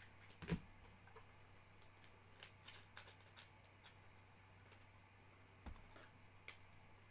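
Faint, scattered clicks and taps of trading cards and card packs being handled, with one louder click about half a second in, over a steady low hum.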